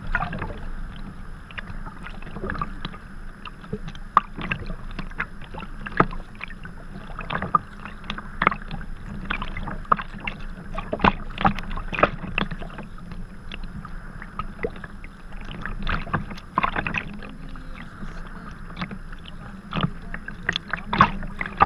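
Sea kayak moving through choppy water, heard from a camera on its bow deck. Small waves slap and splash against the hull at an irregular pace over a steady wash of water noise, with the paddle blades dipping in on each stroke.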